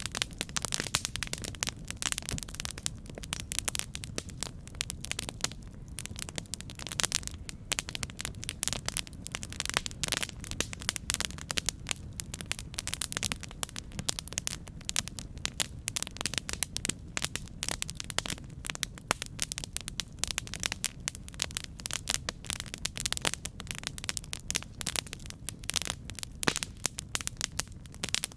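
Campfire burning, with dense, irregular crackles and pops over a steady low rumble.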